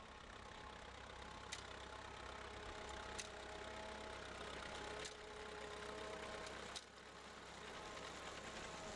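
1940 Fordson N tractor's four-cylinder side-valve engine running steadily as it pulls a binder cutting oats. Sharp clicks recur about every two seconds.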